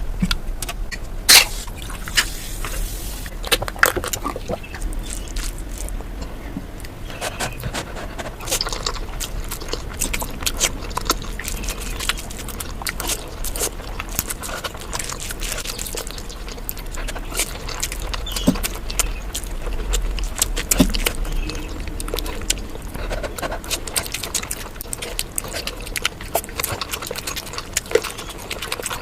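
Eating sounds: chewing and mouth noises with many short, sharp clicks throughout.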